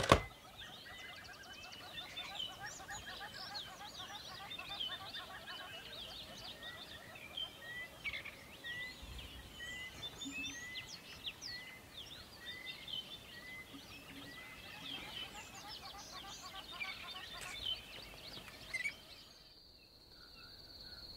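Daytime ambience of many small birds chirping, with one bird repeating a short note about once a second. Near the end this gives way to a steady high insect trill, typical of crickets at night.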